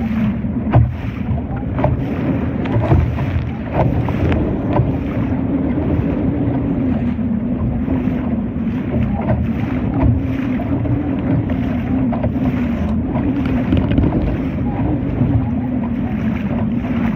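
Wind buffeting the microphone and water rushing and slapping against a Laser dinghy's hull while under sail, over a steady low hum, with occasional knocks.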